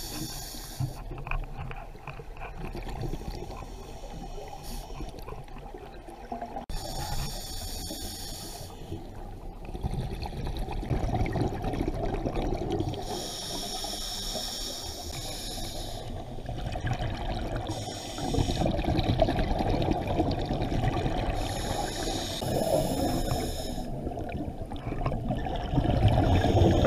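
Scuba diver breathing underwater through a regulator: exhaled bubbles burst out for a second or two every several seconds, with a low rumble of water between breaths.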